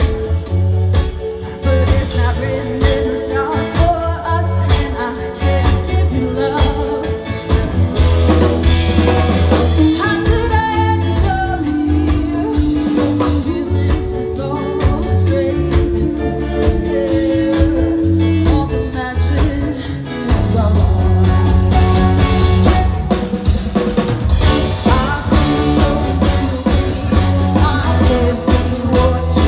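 Live rock band heard from the crowd: a woman singing over electric guitars, bass and drums. The bass and drums drop back briefly about two-thirds of the way through, then come back in.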